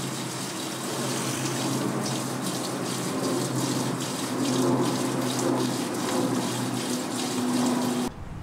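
Water spraying from a garden hose nozzle onto potted plants and the concrete floor, a steady hiss and patter, with a low steady hum underneath. It cuts off suddenly just before the end.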